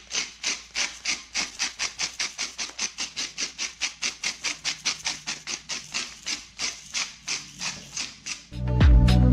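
Salt grinder being twisted by hand, grinding salt crystals in a quick, even run of dry crunching clicks, about five a second. Music starts near the end.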